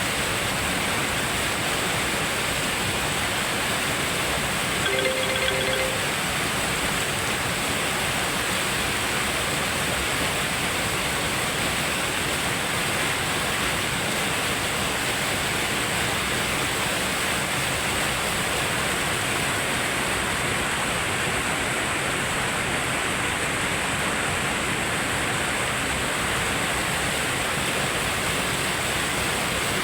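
Waterfall rushing steadily, a constant even roar of falling water. A short pitched sound cuts in briefly about five seconds in.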